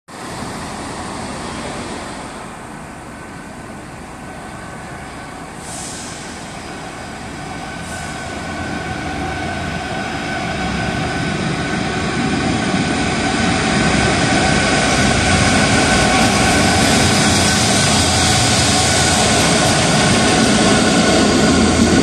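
Class 66 diesel locomotive with its two-stroke V12 engine hauling a charter train out of the station: the engine grows steadily louder as it draws near and passes, then the coaches roll by.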